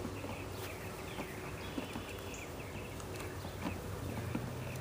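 Package of Italian honeybees buzzing steadily, with a few light knocks as the package is tapped to shake the bees off.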